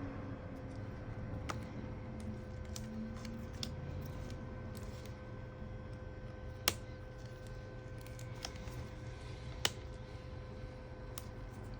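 Light taps and scattered ticks of small parts being handled while the new battery's cable connector is fitted inside an opened MacBook Pro, with two sharper clicks about seven and ten seconds in. A steady electrical hum runs underneath.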